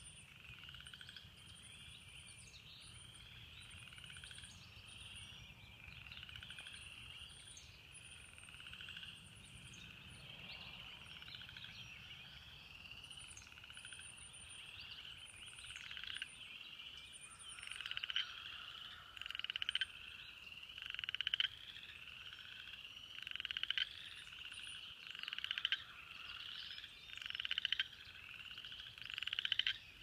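Tree frogs calling in a chorus of repeated trills, each about a second long, one after another. About halfway through, a closer frog joins with louder trills that swell and cut off sharply every couple of seconds.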